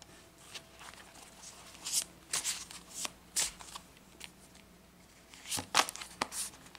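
Tarot cards being shuffled by hand: quiet papery slaps and slides that come in two bursts, about two seconds in and again near the end.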